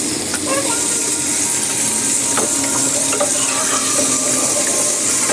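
Thickening gravy sizzling and bubbling in a pan while it is stirred without pause, with a few light clicks of the stirring utensil against the pan. It is kept moving because it lumps as it thickens.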